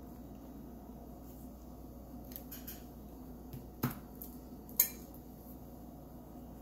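Faint room tone with a few short, sharp clicks or taps; the two loudest come about four and five seconds in.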